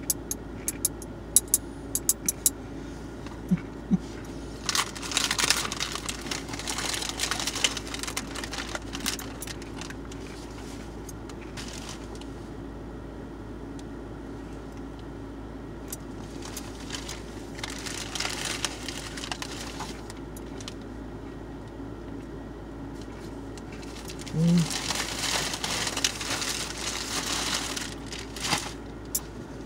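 A quick run of sharp clicks from a metal snack-grabber tong near the start. Then bursts of crinkling and rustling from an Oreo package as it is handled, over a steady low hum.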